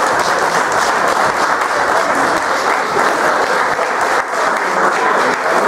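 An audience applauding steadily in a large hall after a prize is announced.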